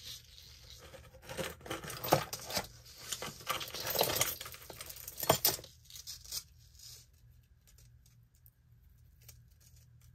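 Hands picking up and pulling apart a tangle of thin metal necklace chains: a busy run of small clinks and rustling for the first six seconds or so, then only a few faint clinks.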